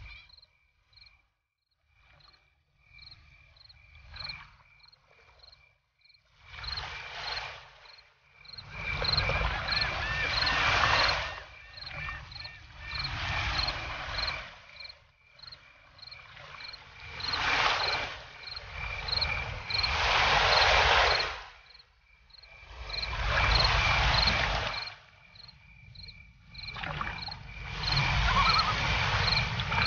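Nature ambience: a small creature, cricket-like, chirps evenly at a high pitch, somewhat more than once a second. Over it, swells of rushing noise rise and fall every few seconds and are the loudest sound.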